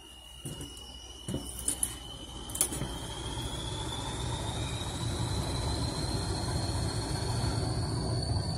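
Class 20 diesel locomotive working under power, its engine rumble growing steadily louder, with a high whine that rises slowly in pitch. A few sharp knocks in the first three seconds.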